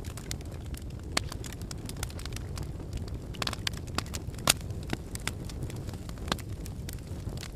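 Wood fire in a fireplace crackling, with a steady low rumble under frequent sharp snaps and pops, a few louder pops about a second in, around three and a half and four and a half seconds, and past six seconds.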